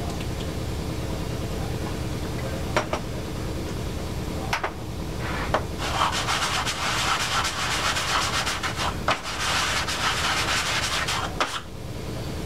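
An Evinrude/Johnson carburetor float bowl being rubbed back and forth on 80-grit sandpaper on the bench, a dry scraping from about halfway through until near the end, after a couple of knocks as the part is handled. It is lapping the bowl's gasket face flat because the face is not yet true.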